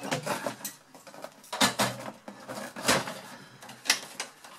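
Hard plastic clicking and knocking as the clip-in plastic pieces on the bottom of a Power Mac G3 Blue & White case are handled and unclipped. There are about four sharp knocks, roughly a second apart, with lighter clatter between them.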